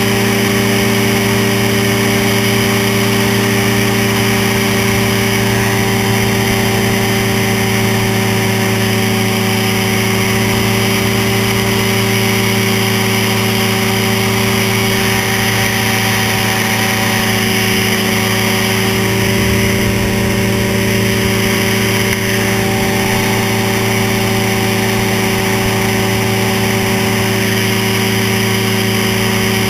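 Ultralight trike's engine and propeller running steadily in cruise flight, heard from on board, holding one even pitch with no revving up or down.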